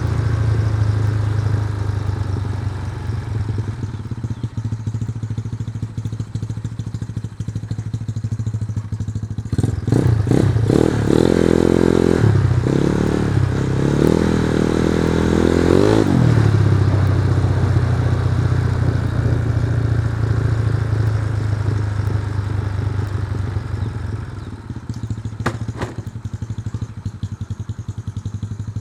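Yamaha Mio scooter's single-cylinder engine idling steadily. About ten seconds in, it is revved in several quick throttle blips for about six seconds, then settles back to idle. The engine is still being run in and is not yet at full performance.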